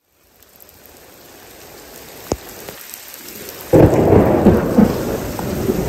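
Steady rain of a thunderstorm fading in, then a sudden loud crack of thunder a little before four seconds in, rumbling on heavily.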